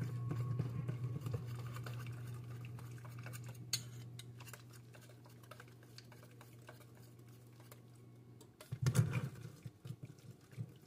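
Wire whisk beating a thin batter in a stainless steel bowl: rapid ticking of the metal wires against the bowl, fading over the first eight seconds. A louder clatter of the bowl about nine seconds in.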